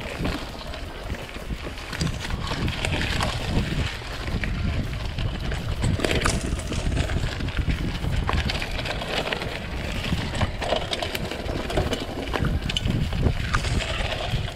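A mountain bike ridden over a dirt trail: a steady low rumble of riding with frequent rattles and clicks from the bike over the rough ground.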